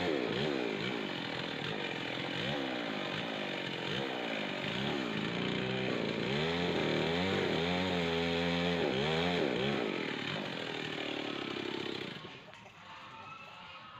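Petrol chainsaw cutting wood, its engine pitch repeatedly rising and falling as the chain bites into the trunk. About twelve seconds in the engine sound drops away.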